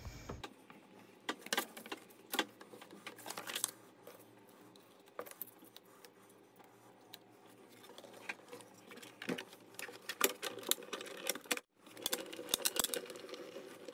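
Clear plastic cutting plates of a Sizzix Big Shot Plus die-cutting machine being handled, and die-cut paper feathers being pulled out: scattered light clicks, taps and paper rustles.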